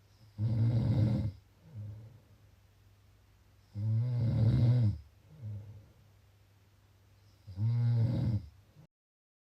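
Snoring: three loud, rattling snores about four seconds apart, each followed by a shorter, softer breath sound, over a steady low hum. The audio cuts out to total silence near the end.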